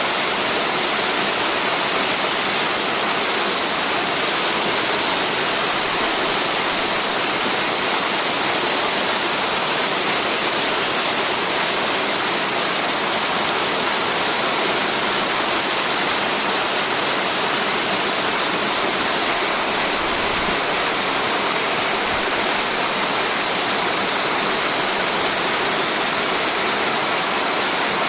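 Tiered mountain waterfall rushing: a loud, steady roar of falling water that does not change.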